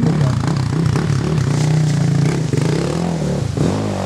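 Sport ATV (quad) engine revving up and down as the rider works the throttle, with a brief drop in revs about three and a half seconds in.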